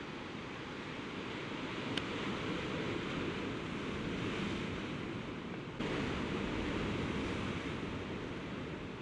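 Sea surf washing against a rocky shore, a steady rush that swells and eases and turns suddenly louder a little past halfway. A single brief click about two seconds in.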